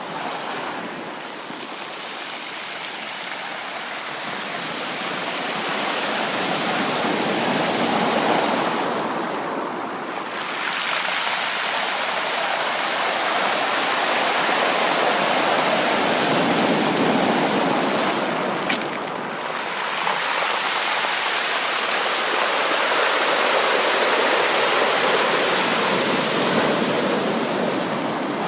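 Ocean surf: waves breaking and washing up a beach, the rush swelling and easing about every ten seconds.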